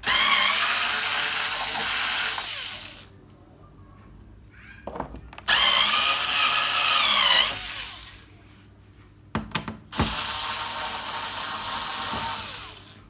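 Cordless screwdriver whirring in three bursts of a few seconds each as it backs out the screws of a TV's plastic back cover, its pitch wavering under load; a few small clicks fall in the gaps between bursts.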